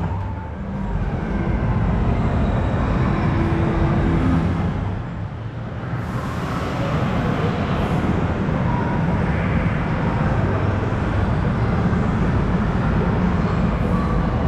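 Steady ambient din of a large indoor hall, a dense low rumbling noise that dips briefly about five seconds in.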